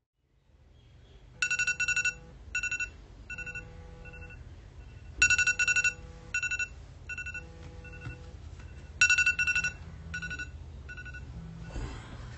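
iPhone alarm ringing: a bright electronic ringtone that comes in three rounds about four seconds apart, each a loud run of rapid beeps followed by softer, shorter repeats. Near the end a brief rustling clatter as a hand grabs the phone.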